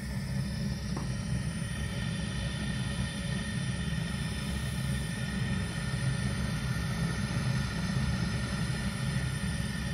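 Gas burner of a Zhukovsky 23 kW heating boiler running with a steady low rumble and an uneven, light grunting flutter: noise of unstable combustion in the burner.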